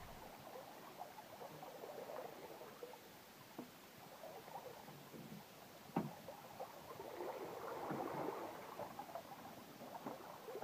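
Faint water lapping and trickling against a catamaran's hull as it sails with no engine running, with scattered small ticks and one sharper click about six seconds in.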